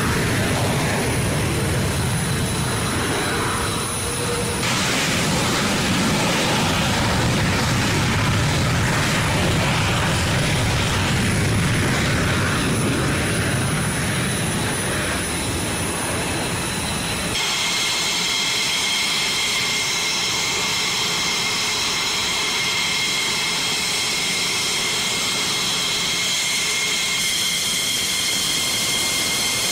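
Fighter jet taking off, a loud continuous roar. A bit past halfway it gives way to the steady high-pitched whine of a jet's turbines at low power, with much less rumble.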